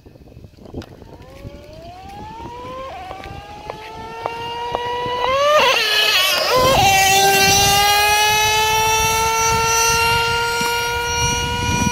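Traxxas Revo 3.3 nitro RC monster truck's small two-stroke glow engine screaming at full throttle. It rises in pitch as the truck accelerates, is loudest about six seconds in, where the pitch drops sharply as it goes by, then holds a steady high whine.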